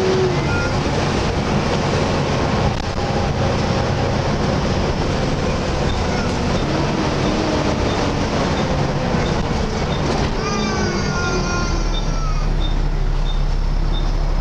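Volvo B7TL double-decker bus running under way, heard from on board: steady engine drone with its loud 'hoover' whine. About ten seconds in several whines fall in pitch as the bus slows, then a regular light ticking sets in, about two and a half a second, over a low idle hum.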